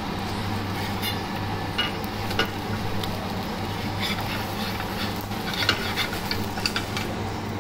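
Omelette sizzling in a flat pan while a steel spatula scrapes and taps against the pan to fold it, with scattered clicks and scrapes over a steady sizzle and a low steady hum.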